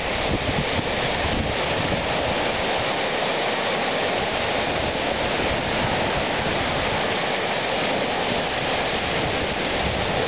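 Small waves breaking and washing up a sandy lake shore in a steady wash of surf, with wind rumbling on the microphone.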